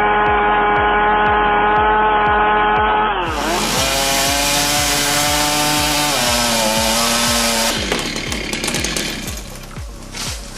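Chainsaw engine running at high revs, a steady high-pitched drone that dips in pitch about three seconds in and settles again. Near the end it gives way to rougher cutting noise.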